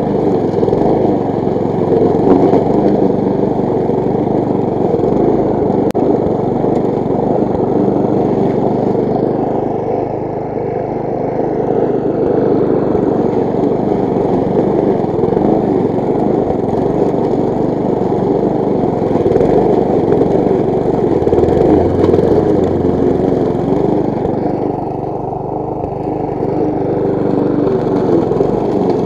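Briggs & Stratton single-cylinder petrol engine of a walk-behind rotary lawn mower running steadily while mowing grass. Its loudness dips briefly twice, about a third of the way in and again near the end.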